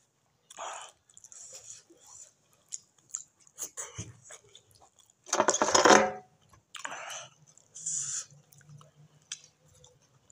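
Close-up chewing and wet mouth noises of a person eating stewed beans by hand, in short irregular bursts, with one louder, longer mouth sound a little past halfway.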